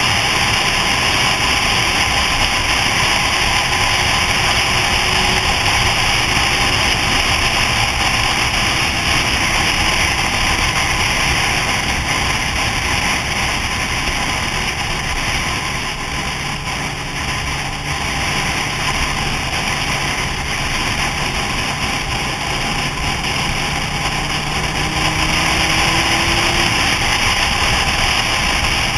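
Wind rushing over a helmet-mounted camera at road speed on a moving motorcycle, with the bike's engine running faintly underneath. The rush eases slightly about halfway through, then picks up again.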